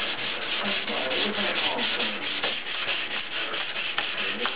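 Hand wet sanding of a cured gel coat repair with wet sandpaper lubricated by soapy water: quick, even back-and-forth rubbing strokes.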